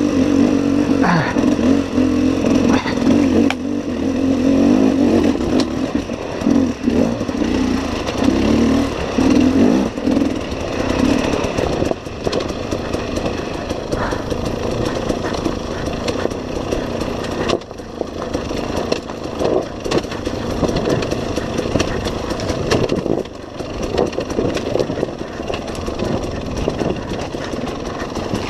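KTM enduro dirt bike engine revving up and down under load, hard through the first ten seconds or so and then lower and more uneven, with frequent knocks and clatter from the bike riding over rocks.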